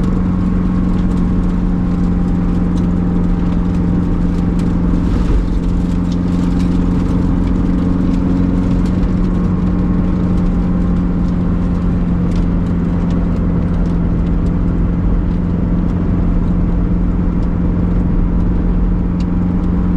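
Supercharged 1.8-litre Toyota 2ZR four-cylinder of a Lotus Elise Sport 220 II running under way, heard from inside the cabin, its note held at nearly constant revs with only a slight dip about five seconds in. Faint light ticks come and go over it.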